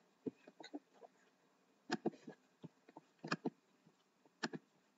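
Computer mouse buttons clicking: a handful of sharp separate clicks over a few seconds, some in quick pairs.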